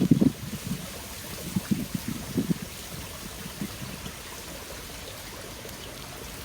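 Water running steadily in a swollen, muddy canal: an even rushing hiss. A few low, muffled bumps come in the first three seconds.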